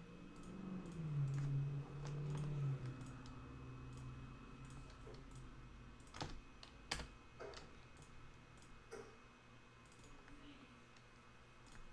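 Computer keyboard clicking sparsely, with two sharper clicks about six and seven seconds in. A low hum that dips in pitch runs through the first three seconds.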